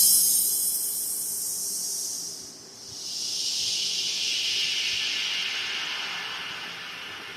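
High-frequency test signal played through a PA sound system during a sound check: a bright hiss that fades out, then from about 3 s in a second band of hiss that sweeps steadily downward in pitch while slowly getting quieter.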